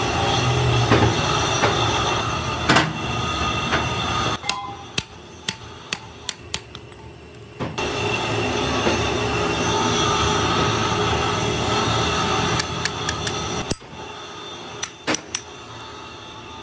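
Workshop machinery running with a steady noisy drone and a high whine, dropping away about four seconds in and coming back about four seconds later, then stopping near the end. In the quieter gaps there are light clicks of small metal parts being handled.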